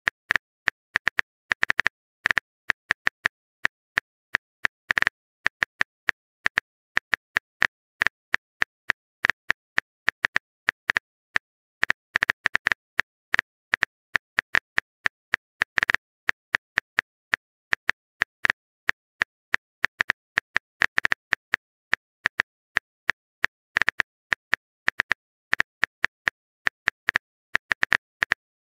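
Phone keyboard typing sound effect: short, sharp key clicks at an uneven pace, a few a second, with dead silence between them.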